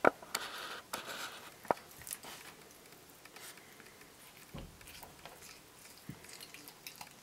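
A raccoon chewing and gnawing a chicken leg: a few sharp crunches in the first two seconds, then softer, scattered wet clicks of chewing.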